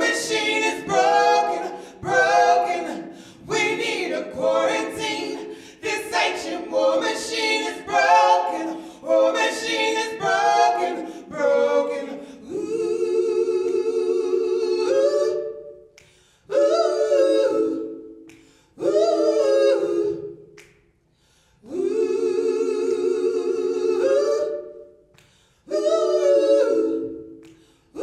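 Three women's voices singing a cappella in gospel-style harmony. For about the first twelve seconds the words come quickly, one syllable per note. After that come long held chords with vibrato, in short phrases with brief breaks between them.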